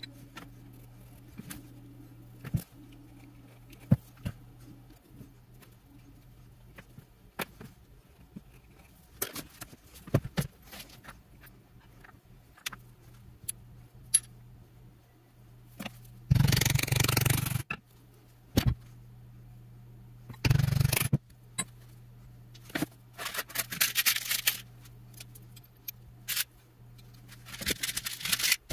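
Leather and hand tools handled on a workbench: scattered clicks and taps, with several bursts of scraping, the loudest about sixteen seconds in and others toward the end. A steady low hum runs underneath.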